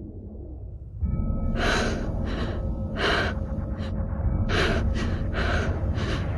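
A person breathing hard and fast, short gasping breaths about every three-quarters of a second, over a low rumbling drone that swells up about a second in.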